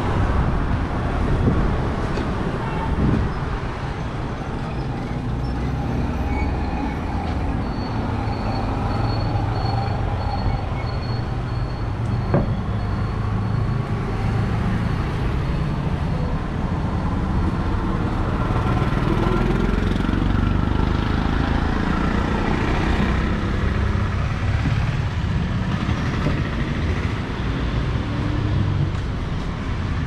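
Steady street traffic noise from a town road: engines of passing vehicles, including three-wheeler auto-rickshaws, running without a break. One sharp knock about twelve seconds in.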